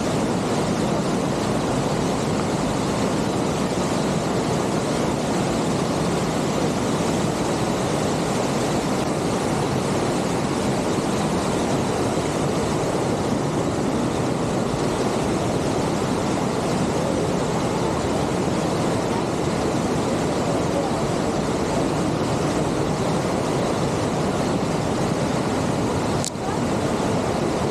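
Fast mountain creek rushing over rocks in whitewater, a steady loud hiss, with a momentary dropout near the end.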